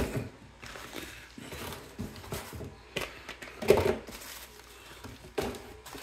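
Rustling of plastic and padded-envelope packaging as small packages are picked up and moved around, with a few light knocks, the sharpest a little past the middle.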